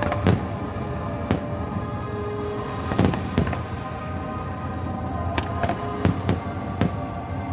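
Fireworks shells bursting in sharp bangs at irregular intervals, about eight in all, several in quick pairs, over music playing along with the display.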